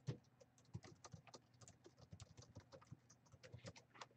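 Faint, irregular clicking of a laptop keyboard being typed on.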